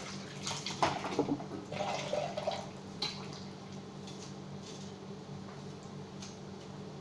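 Tap water running and splashing at a kitchen sink with a skillet clattering as it is washed, stopping about three seconds in. A steady low hum remains, with a few light taps of a knife cutting on a plate.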